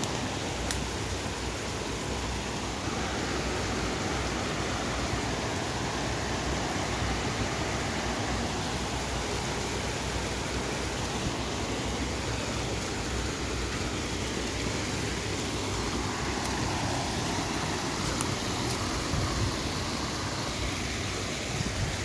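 Steady flowing of a small woodland brook's water, an even noise that holds level throughout.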